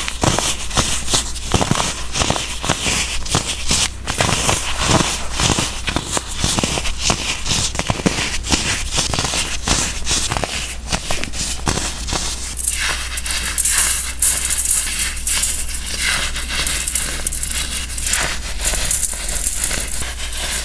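Pressed baking soda blocks being crushed: a dense run of crisp crunches and crumbling crackle over a steady low hum. About two-thirds of the way through it turns to a finer, hissier crumbling.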